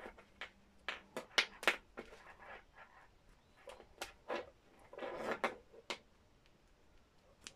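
Light scattered clicks and rustles of wires and plug connectors being handled as a backup camera's red power connector and yellow RCA video plugs are pulled apart and pushed together.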